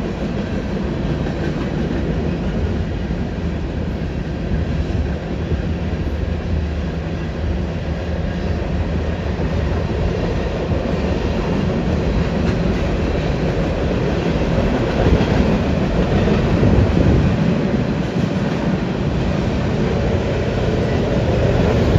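Freight cars of a mixed manifest train rolling over a steel girder bridge: a steady rumble with wheels clicking over the rail joints, getting louder near the end.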